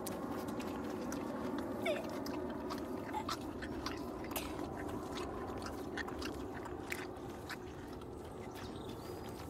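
Shetland pony licking and chewing ice cream off a stick, with small irregular wet clicks from its lips and teeth.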